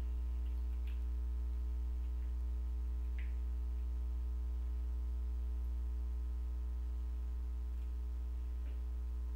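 Steady electrical mains hum with a buzz of overtones, unchanging throughout. A couple of faint soft sounds come from a ketchup sachet being squeezed out over the bowl.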